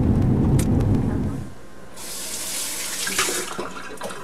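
Low rumble of a car's cabin on the move, which cuts off about a second and a half in. About half a second later comes a kitchen tap running into a sink, a steady hiss of water for a second or two that then dies away.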